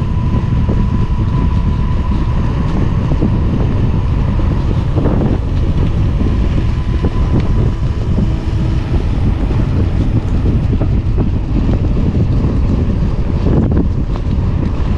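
Wind buffeting the microphone during a mountain bike ride: a loud, steady low rumble, with a faint steady high tone that fades out about halfway through.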